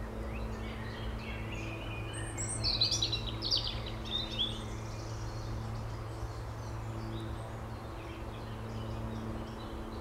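Wild songbirds singing and chirping, several overlapping, loudest about two to four seconds in, over a steady low hum.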